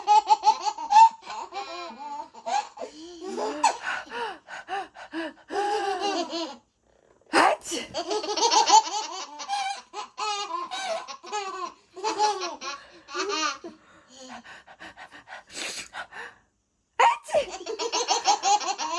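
A young child laughing hard in repeated high-pitched bursts. About seven seconds in, a woman sneezes once ('achoo'), and the laughter breaks out again; it dies down near the end, then returns.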